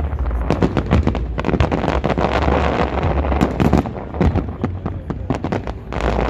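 Fireworks display bursting in rapid succession: many overlapping sharp bangs and crackles, over a steady low rumble.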